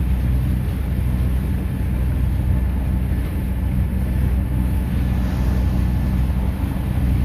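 A sailboat's inboard engine running steadily as the boat motors out, a low even hum under a hiss of wind and water.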